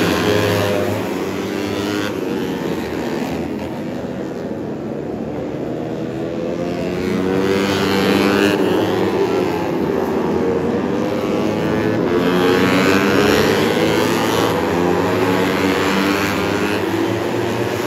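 A pack of 150cc four-stroke underbone racing motorcycles revving hard as they pass, several engines rising and falling in pitch over one another as the riders work through the gears.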